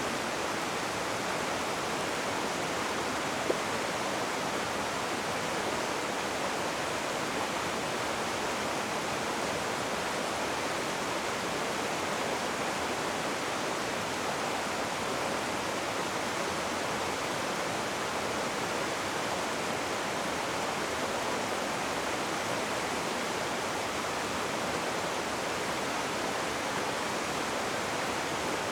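Rushing river water flowing in a steady, even rush.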